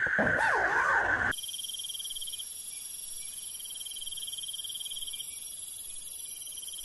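Night chorus of crickets: steady high-pitched trills, one of which stops and starts every few seconds. It comes in after an abrupt cut about a second in, before which a louder, steady animal chorus with a few rising-and-falling calls is heard.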